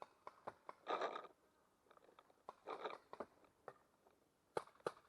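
Scattered faint pops and clicks of paintball markers firing during play, two close together near the end, with a couple of brief rustling noises in between.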